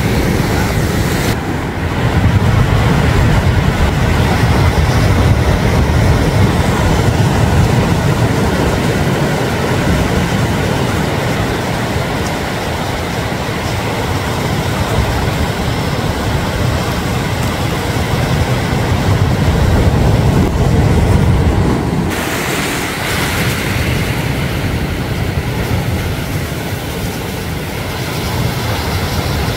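Continuous loud rush of sea surf, with wind buffeting the microphone; the sound shifts about two-thirds of the way through.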